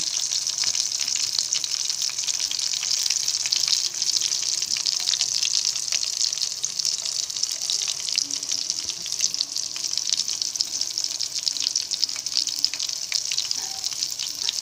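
Egg-and-gram-flour-battered fish pieces frying in hot oil in a pan: a steady sizzle with dense fine crackling.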